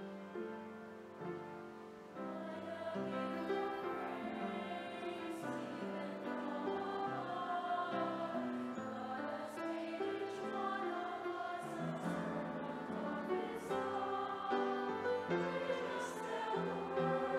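A mixed choir of men's and women's voices sings an English hymn. It enters about two seconds in over a piano that is playing at the start.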